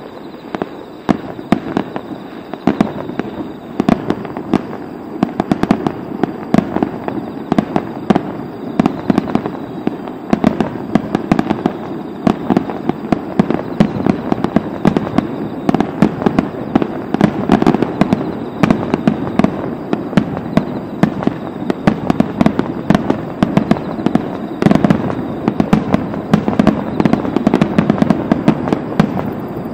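A fireworks display in full barrage: shells bursting in quick succession, a dense run of bangs and crackles many times a second with no break.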